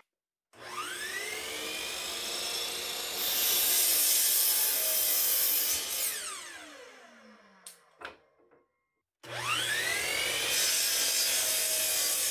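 Hitachi C12RSH 12-inch sliding compound miter saw whining up to speed and crosscutting a wooden door rail, the sound growing louder and hissier while the blade is in the wood, then winding down with a falling whine and a couple of clicks. After a short break it starts up again and makes a second cut near the end.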